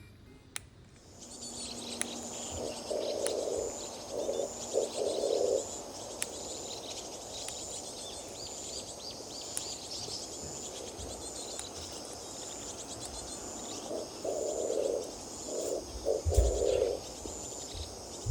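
Young Pacific parrotlets chirping continuously in fast, high-pitched calls, with a few sharp clicks. Bursts of lower rustling noise come in a few seconds in and again near the end.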